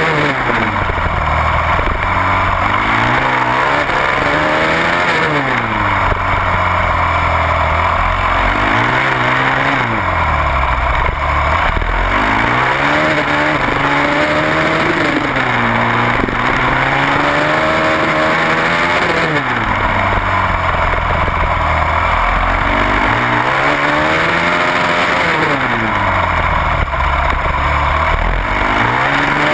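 Onboard sound of a supermoto racing motorcycle's engine at racing pace, its pitch climbing hard as it accelerates and dropping back as it brakes into corners, over and over every few seconds, over a constant rushing noise.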